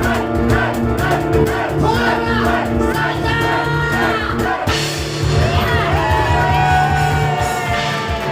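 Live piano and cajón instrumental music with a driving beat, the audience shouting and cheering along; the shouting is strongest in the second half.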